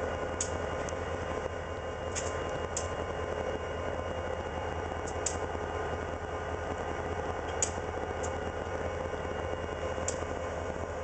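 Diesel locomotive running at idle, a steady low drone with a held hum, broken by a few faint sharp clicks.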